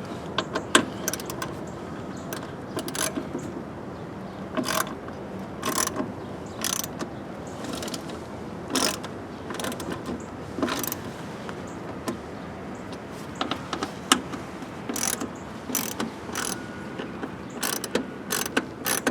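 Hand ratchet with a T27 Torx bit clicking in short, irregular runs of strokes as it backs out the screws that hold a car door's lock assembly.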